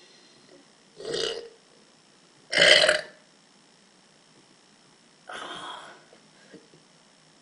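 A teenage girl's deliberate burps: three short belches, one about a second in, a louder one near the middle, and a weaker one later.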